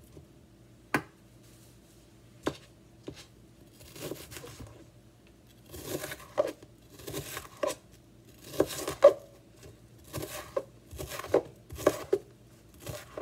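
Chef's knife (Pure Komachi 2) cutting through red onion onto a plastic cutting board: a few separate sharp cuts in the first three seconds, then repeated crunchy dicing strokes, about one to two a second.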